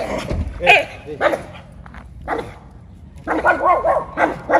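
A small dog barking in short bursts, a few spaced barks and then a quick run of them near the end.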